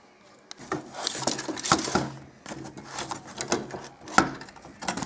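Irregular clicks, taps and rattles of a car stereo's sheet-metal chassis and plastic parts being handled and unscrewed during a teardown, with one sharp knock about four seconds in.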